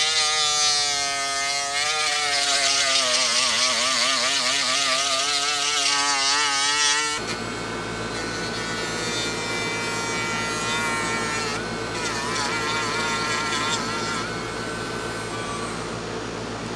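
Cordless Dremel 7700 rotary tool with a sanding drum, running and grinding old glue and excess midsole off a sneaker sole; its whine wavers in pitch as it is pressed against the work. About seven seconds in the sound changes abruptly to a quieter, steadier run.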